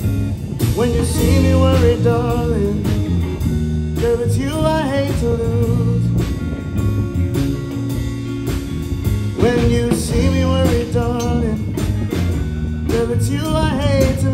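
Live blues band playing: electric guitar lead phrases with bending notes over bass guitar and drum kit, recurring every few seconds, with no lyrics sung.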